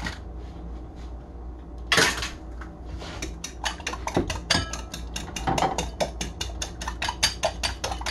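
A utensil clinking against kitchen dishes: a short scrape about two seconds in, then a quick run of light taps, about four or five a second, some with a brief ringing tone.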